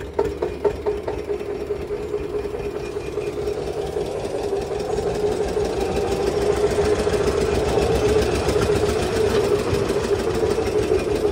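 Tractor diesel engine heard from the driver's seat, running steadily at low speed with a fast, even chugging as the tractor creeps forward; it grows a little louder over the first few seconds.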